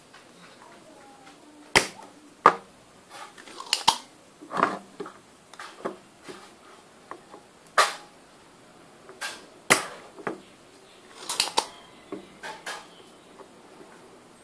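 Spring-loaded desoldering pump (solder sucker) firing its plunger against circuit-board joints, giving sharp clacks about a dozen times at irregular intervals as molten solder is sucked off. The loudest snaps come about two seconds in, near eight and ten seconds, and in a quick cluster at about eleven and a half seconds.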